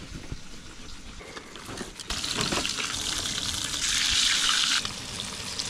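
Flour-dredged trout fillets sizzling in hot oil and butter in a skillet on a Coleman camp stove. The sizzle is quieter for the first two seconds, then steady, and louder for about a second just before the five-second mark as the hot fat is spooned over the fish.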